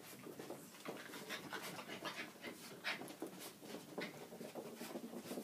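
Norwich terrier puppies at play, panting in quick breaths among irregular short scuffling noises.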